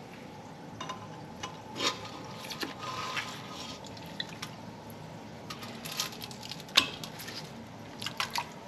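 Toilet brush scrubbing a ceramic toilet bowl: wet swishing in the water with scattered clicks and knocks of the brush against the porcelain, one sharper knock about seven seconds in.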